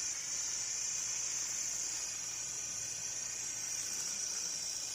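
Small toy-helicopter DC motor with a propeller running steadily on a bench thrust test, a constant high-pitched whir.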